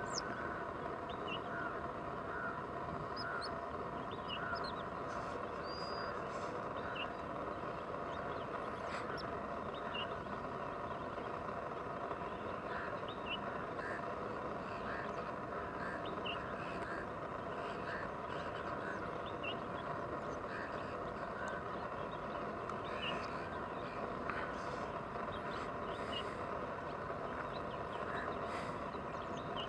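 Steady rush of shallow water running over stones, with short high bird calls dotted through it every second or so.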